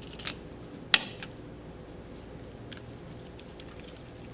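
Small metallic clicks and taps as a stainless steel cap is set onto a piston-cylinder housing and a screwdriver shaft is fitted into it. One sharp click comes about a second in, with a lighter one just before and a few faint ticks later.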